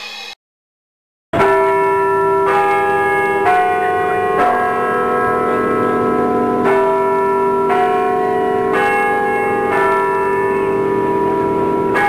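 Bells ringing: a ringing strike is cut off right at the start, then after about a second of silence a peal begins, with a new bell note struck roughly once a second over a steady ringing hum.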